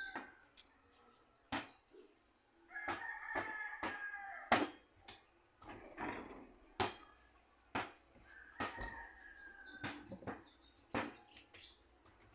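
A rooster crowing twice, about three seconds in and again around eight and a half seconds, with scattered sharp clicks and crunches throughout.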